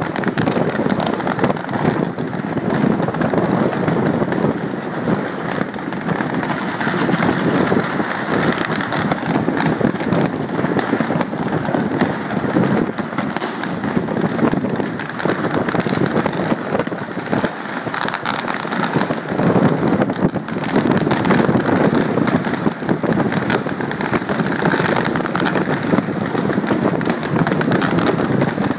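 Many fireworks and firecrackers going off at once, merging into a continuous crackling, popping din with no pauses.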